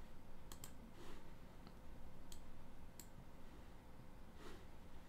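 A few faint computer mouse clicks: a quick pair about half a second in, then two single clicks between two and three seconds in, with a softer rustle near the end.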